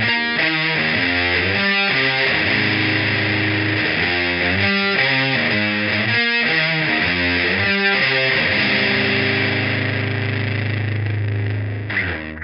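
Heavily distorted electric guitar playing a riff of stop-start chords, then letting one chord ring for a few seconds before it is cut off near the end.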